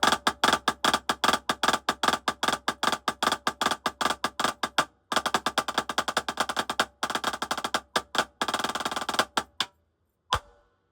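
Drumsticks playing a Herta breakdown rudiment exercise in fast, even strokes, about eight a second, with a short break about five seconds in, a faster run near the end and one last single hit. A nearby drum kit's cymbals and drums ring along, giving the strokes a lot of reverb.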